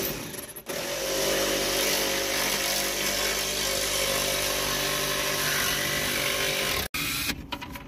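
Cordless jigsaw sawing through a wooden board, its motor running at a steady pitch and cutting off abruptly about seven seconds in.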